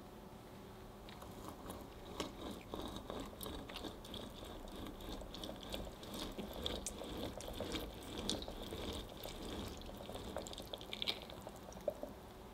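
Half a pink grapefruit pressed and twisted on a plastic citrus reamer: wet crunching and squishing of the pulp against the ridges, with many small clicks, as the juice runs into the glass bowl below. A few sharper clicks come near the end.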